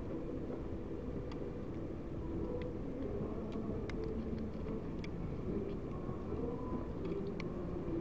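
Low, steady outdoor street rumble, with a group singing Russian folk songs faintly audible from inside the building, muffled through its walls and windows.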